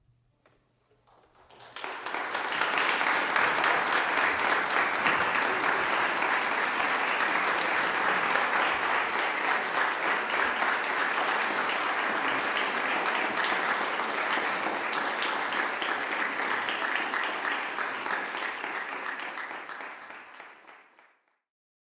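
Audience applauding: clapping builds up about two seconds in, holds steady, and fades out shortly before the end.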